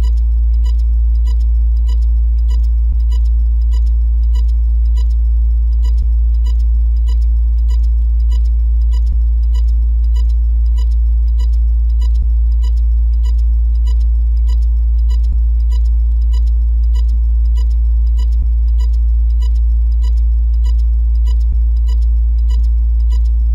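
A loud steady low electronic drone with a regular high ticking blip about twice a second over it, and a faint low pulse about every three seconds.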